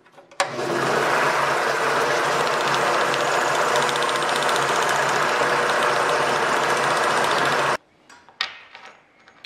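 Drill press spinning a split steel shaft with sandpaper inside a steel hinge tube, sanding its bore clean: a steady motor-and-sanding noise that starts about half a second in and cuts off suddenly near the end. A few light clicks of small metal hinge parts being handled follow.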